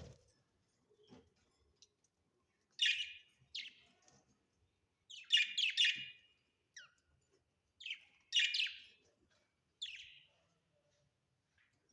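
Budgerigars chirping in short, irregular bursts, several quick chirps to a cluster with brief pauses between.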